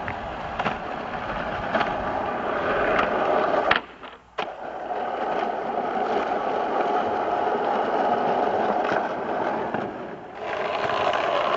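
Roller racer's small wheels rolling on an asphalt driveway: a steady rolling, scraping noise with a few sharp clicks in the first few seconds, cut off briefly about four seconds in and again near the end.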